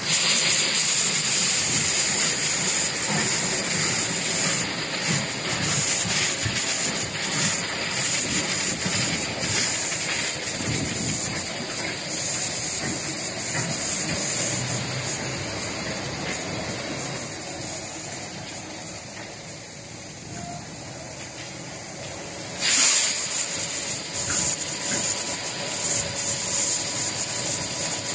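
Concrete batching plant machinery running: a steady mechanical din with a strong high hiss, and a sudden loud hiss burst about 23 seconds in.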